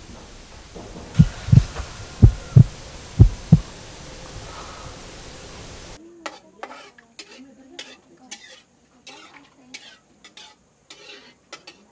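Three deep double thumps like a heartbeat over a steady hiss. Then, about halfway, a run of light clinks, knocks and scrapes of a metal utensil stirring in a pot.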